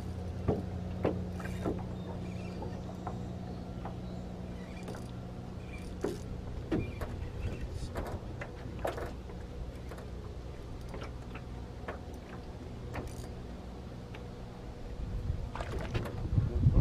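A small electric motor hums steadily and low, its higher tone dropping out about seven seconds in. Scattered light clicks come from a spinning reel being worked. Near the end, wind starts buffeting the microphone.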